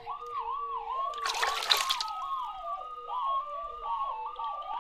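Two electronic tones whose pitch is set by water-level sensors in sloshing water. The upper tone, near 1 kHz, swoops down and back up over and over, and the lower one wavers below it, so together they sound siren-like. A short burst of splashing water comes about a second and a half in.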